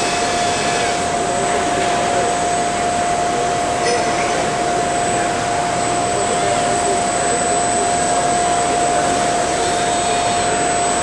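Steady machinery and air noise of a busy exhibition hall, with a constant mid-pitched hum and a thin high whine over it, and faint distant voices.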